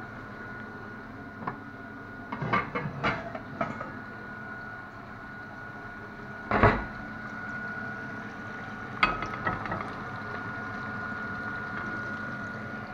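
Cookware being handled on a gas stovetop: a few clusters of sharp knocks and clatters, with one loudest thump about halfway through, over a steady background hiss carrying a faint high tone.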